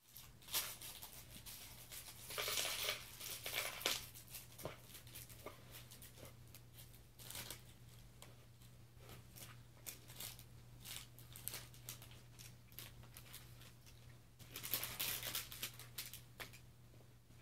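Faint rustling and crinkling noises in irregular spells, loudest about two to four seconds in and again near the end, with a few small clicks, over a steady low hum.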